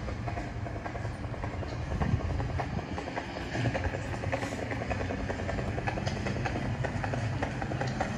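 Steady low city rumble with many light, irregular clicks, like a train or heavy traffic running somewhere below.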